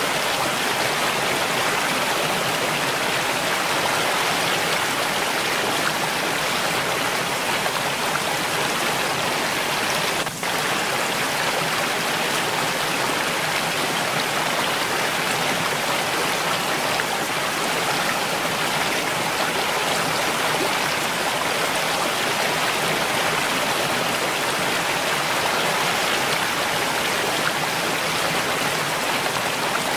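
Mountain stream flowing: a steady, even rush of running water, with a brief dip in level about ten seconds in.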